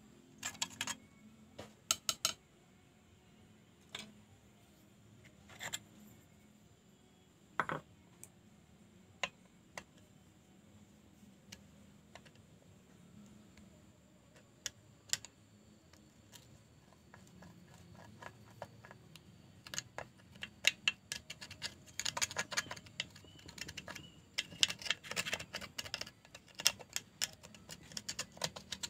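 Hand tools working on the metal parts of a Husqvarna 365 chainsaw during oil-pump removal: scattered clicks, taps and short scrapes, sparse at first and coming thick and fast near the end.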